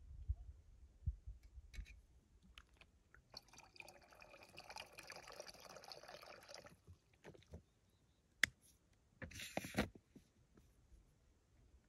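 Water trickling from an upturned, squeezed plastic bottle into a small metal cook pot, running for about three seconds and then stopping. A sharp click and a brief rustling follow near the end.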